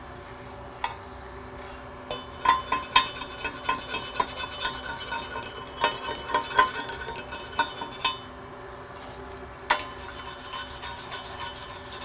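Flux-core arc welding on steel plate: irregular sharp pops and metallic clinks of spatter through the middle, then a steadier crackle that sets in near the end.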